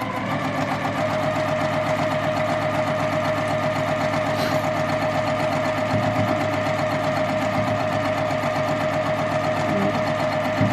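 Electric sewing machine stitching a seam through quilt fabric at a steady speed, with a steady motor whine.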